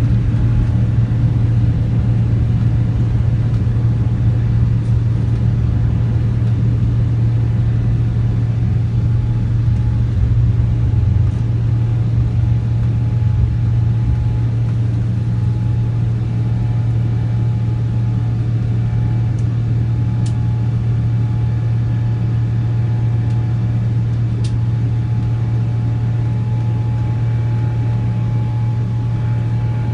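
Boeing 777 jet engines at takeoff thrust, heard inside the cabin as a steady low roar with a deep hum and a few faint steady tones, while the airliner lifts off and climbs. The level eases slightly after the middle.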